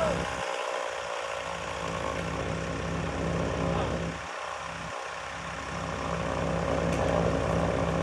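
An engine idling steadily, getting louder over the last couple of seconds.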